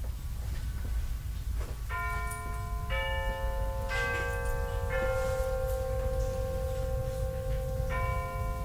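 Shop ambience: a steady low rumble of the store, over which a bell-like chime sounds four notes about a second apart, each one ringing on, starting about two seconds in; the same chime starts again near the end.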